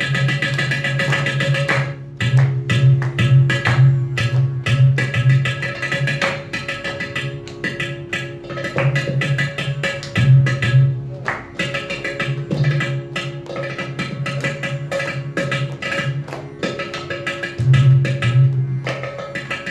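Carnatic percussion solo (thani avartanam) on mridangam and ghatam: fast, dense strokes with recurring deep, booming bass strokes, over a steady sruti drone.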